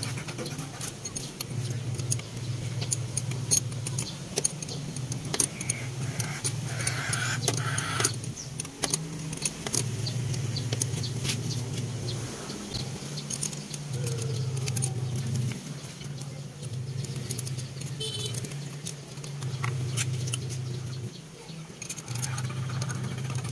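Metal clicks and clinks of a wrench and loose carburetor parts being handled while a Kia Pride's carburetor is taken apart, over a low hum that cuts in and out.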